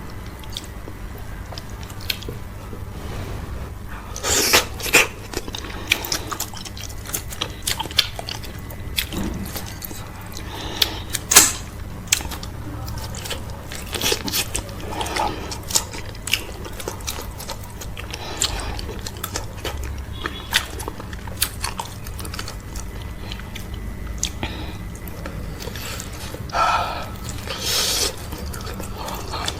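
Close-miked chewing and biting of okra soup with cow foot and fufu: irregular wet smacks and sharp mouth clicks, with a few louder smacks scattered through, over a steady low hum.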